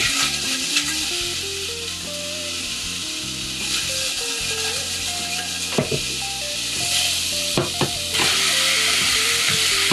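Food frying in olive oil in a hot pan, a steady sizzle that gets louder about eight seconds in, with a few sharp clicks of a utensil against the pan. Soft background music with stepping notes plays underneath.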